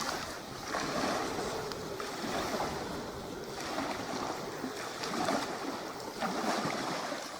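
Small waves lapping at a shoreline: a soft, rushing water noise that swells and falls back every second or so.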